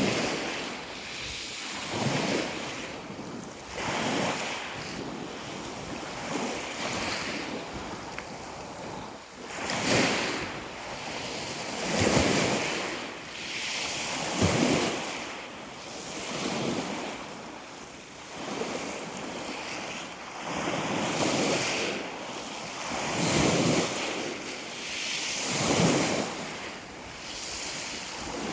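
Sea waves washing onto the shore in surges every two seconds or so, with some wind noise on the microphone.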